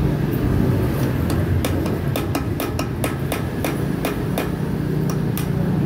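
Hammer striking a metal drift held in a Paps Pro 1 bicycle hub during sealed-bearing replacement: quick, sharp metal taps, about four a second, starting about a second in, with a brief pause near the end.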